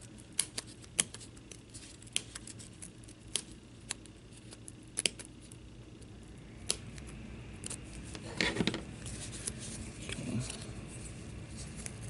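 Small pointed-tip Fiskars detail scissors snipping the paper disc out of a metal-rimmed key tag: a run of sharp, irregular snips, then a short burst of rustling and scraping about eight seconds in.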